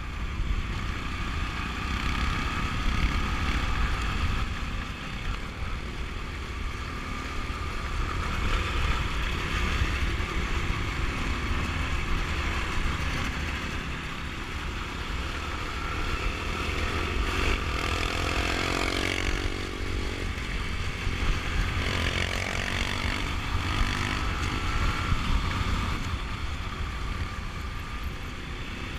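Trail motorcycle running at road speed in a group of motorcycles, with engine noise and a heavy low rumble of wind on the handlebar-mounted microphone. About two-thirds through, other engines rev briefly, with rising and falling notes.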